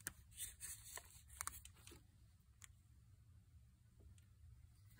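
Near silence: room tone with a few faint clicks and taps, mostly in the first two seconds.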